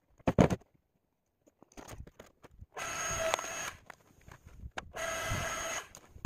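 Electric log splitter's motor running twice, for about a second each time, with a steady whine as the ram drives a log through the wedge. A sharp wooden knock near the start, as a log is set down.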